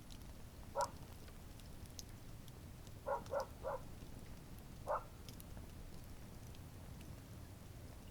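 Campfire burning, with faint wood crackles over a low steady rumble. Over it, short animal calls are the loudest sound: one about a second in, a quick run of three near the middle, and one more about five seconds in.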